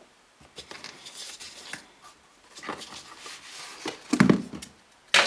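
Hands rummaging in a cardboard box of packaging: scattered rustling and light handling noises, a louder thump about four seconds in, and a sharp knock just before the end.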